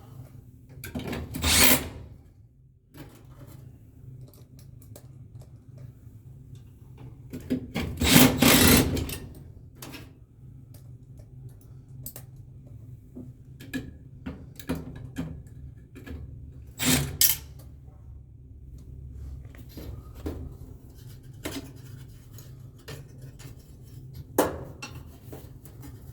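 Hand tools and metal furnace parts being handled while an inducer motor assembly is refitted: scattered clicks and taps, with louder scrapes about a second and a half, eight, seventeen and twenty-four seconds in, over a low steady hum.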